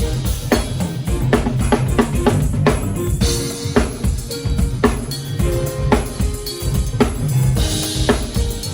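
Band music led by a drum kit: a steady beat of about two hits a second with bass notes underneath, and a cymbal crash about three seconds in and again near the end.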